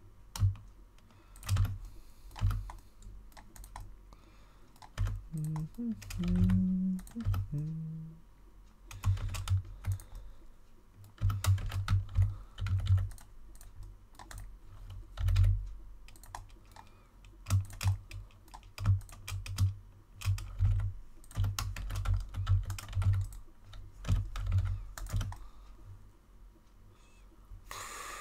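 Typing on a computer keyboard: irregular runs of key clicks, each with a dull low thud, coming in clusters with short pauses between them.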